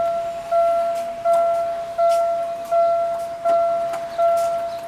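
Railway level-crossing warning bell ringing in steady, evenly spaced strokes, about one and a half a second, each starting sharply and fading. It keeps ringing at a faulty crossing whose barrier has stayed down after the train has gone.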